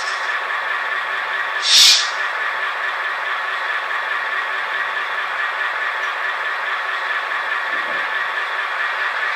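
Sound-equipped N-scale model of an Algoma Central FP9 diesel locomotive standing with its decoder playing a steady diesel idle through its small speaker. A short sharp hiss comes about two seconds in.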